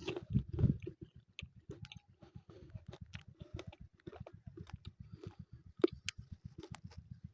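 Indian ringneck parrot chewing: irregular sharp clicks and crunches, loudest in the first second, over a fast, even low pulsing.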